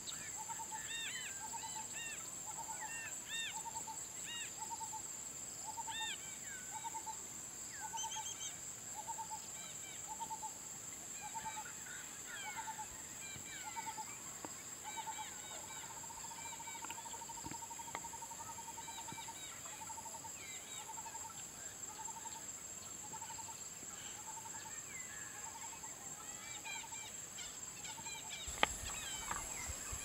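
Outdoor nature ambience: a bird repeats a short hooting note about one and a half times a second, once running it into a longer trill, over a steady high insect drone and scattered bird chirps. A single sharp click comes near the end.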